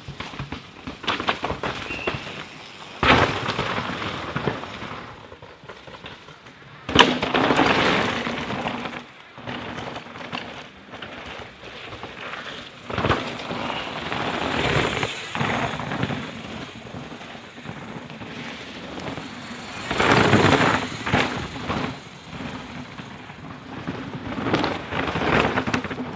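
Downhill mountain bikes ridden hard past the trackside one after another: tyres tearing over dirt and rock in rising and falling passes, with sharp knocks of wheels and suspension striking rocks, the loudest about seven seconds in.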